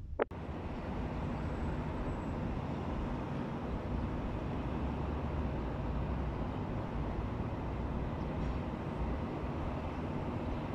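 A brief click at the very start, then a steady hum of distant traffic and outdoor ambient noise.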